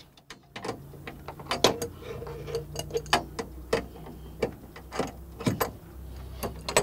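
Irregular sharp clicks and clinks of hand tools and metal parts being handled in a generator compartment, a dozen or so over several seconds.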